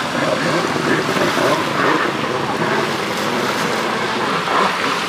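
Stand-up jet ski running across the water, a steady rush of engine and spray mixed with wind on the microphone.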